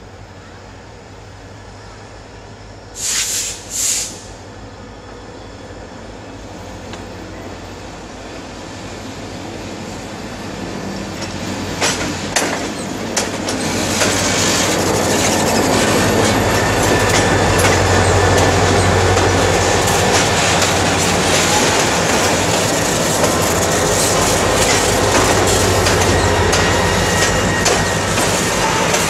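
Metre-gauge diesel freight locomotives approach and pass close by, their engines droning and growing louder, then tank cars roll past with wheels clicking over the rail joints and a faint wheel squeal. About three seconds in come two short, high-pitched blasts.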